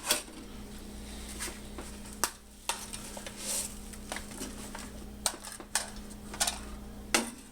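GI-style AR magazines clinking and knocking as they are handled and set into a metal ammo can: a scattering of separate sharp clacks, about eight over several seconds.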